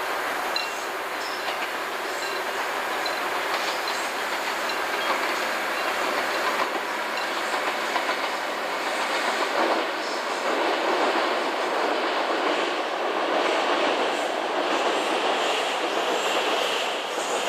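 Korail CDC diesel commuter railcar train passing across a bridge: a steady rumble of engine and running gear, with the wheels clacking over the rail joints, growing a little louder in the second half.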